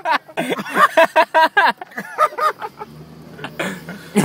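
Men laughing in quick, rhythmic bursts, then a low steady hum from about three seconds in.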